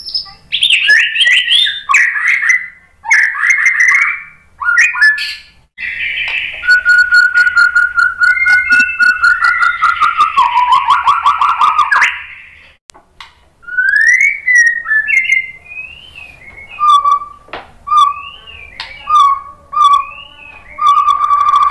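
White-rumped shama singing a loud, varied whistled song. In the middle comes a long rapid run of notes over a held whistle that dips near its end. Near the end it gives rising whistles and a string of repeated short whistles.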